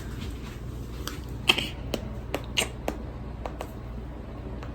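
A scattering of about ten short, light clicks and taps at an irregular pace, over a steady low hum.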